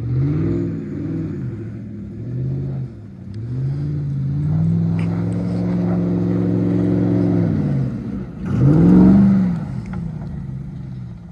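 Car engine revving up and down several times: two short blips, then a climb to a pitch held steady for a few seconds, a drop, and one quick, loudest rev near the end before it settles back.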